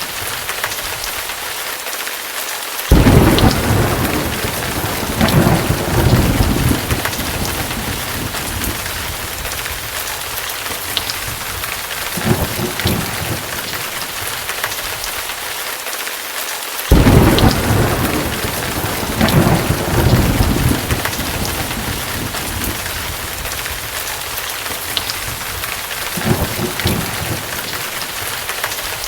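Rain and thunder sound effect: steady rain hiss with rolling thunder. Two loud thunderclaps break in suddenly, about three seconds in and again past the middle, each trailing off into rumbles, with smaller rumbles in between.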